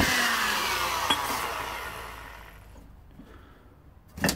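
Die grinder on an old Black and Decker spinning down after being switched off, its whine falling in pitch and fading away over about three seconds. A single knock near the end.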